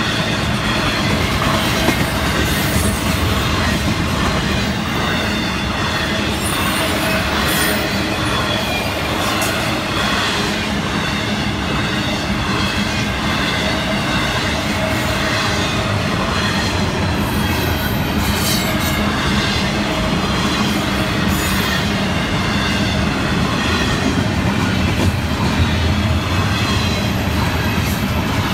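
FEC intermodal freight cars, trailers on flatcars and double-stack container cars, rolling steadily past close by. The steel wheels keep up a constant rumble and clatter on the rails.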